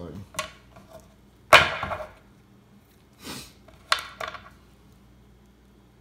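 Hands handling a silicone watch strap, a watch and its plastic packaging: a loud knock with rustling about one and a half seconds in, a short rustle, then a sharp click, before it goes quiet.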